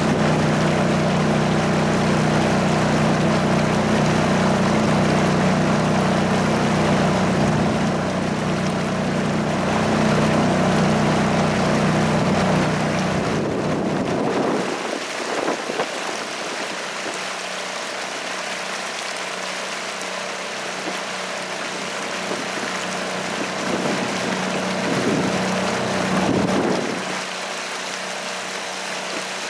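Small outboard motor running steadily, a continuous engine hum over wind and water noise. About halfway through the sound changes abruptly to a quieter, lighter hum.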